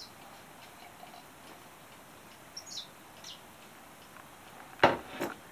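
A glass of tea set down on a hard surface: one sharp knock near the end, followed by a lighter tap.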